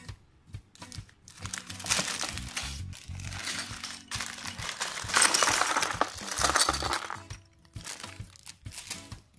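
A plastic bag of LEGO bricks crinkling as it is handled and opened, then small plastic bricks pouring out of it and clattering, loudest a little past the middle, over background music.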